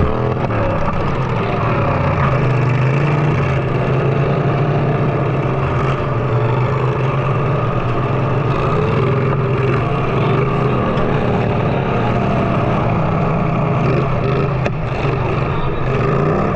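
Riding lawn mower engines running loud and steady.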